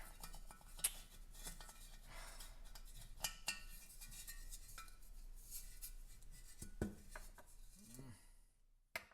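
Scattered small metallic clicks and clinks, as of tools and small parts being handled on a workbench, over a faint steady hum. There are a few sharper knocks, and the sound fades out near the end.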